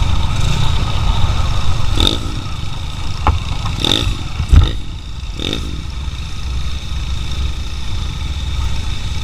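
Motorcycle engine running with a steady low rumble, with a handful of sharp knocks or clatters in the middle, the loudest about four and a half seconds in.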